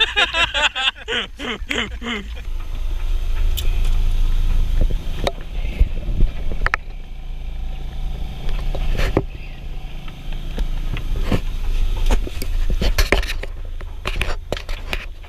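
Sailboat's auxiliary engine running steadily under motor in a calm, a low even rumble. There is a voice in the first couple of seconds. Sharp knocks and bumps come through, more of them near the end as the camera is handled and carried down into the cabin.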